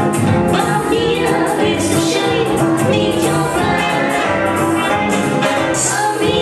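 Upbeat swing dance music for a jive, played loud and steady with a driving beat.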